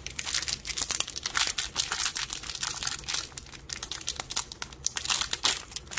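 A small crinkly blind-bag wrapper being crumpled and torn open by hand: continuous irregular crinkling throughout.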